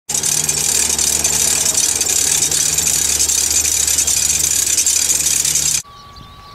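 Pratt & Whitney JT15D turbofan of a Cessna Citation II running, heard close to the intake: a loud, steady high hiss over a low hum. Near the end it cuts off abruptly to a much quieter background with a faint steady whine.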